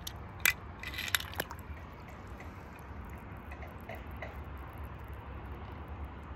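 Small splashes and drips of water as a toy car drops into a pool, with a few short sharp clicks about half a second and a second in.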